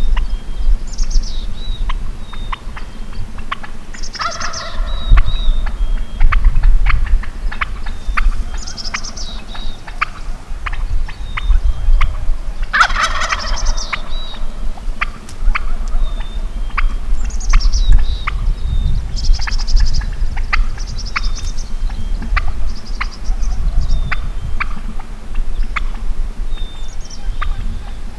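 Merriam's wild turkey tom gobbling several times, the loudest calls about four seconds in and about halfway through. Short high songbird chirps run between the gobbles.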